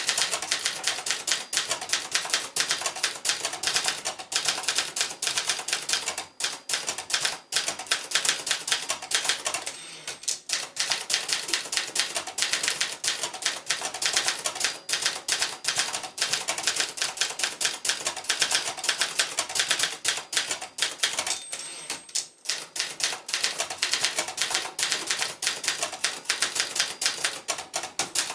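1965 Brother Activator 800T ultraportable manual typewriter being typed on steadily: a fast, continuous run of sharp keystrokes, several a second, with a few short breaks.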